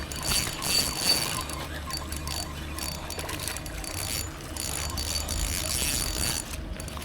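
Fishing reel clicking and ratcheting while a hooked fish is fought on the line.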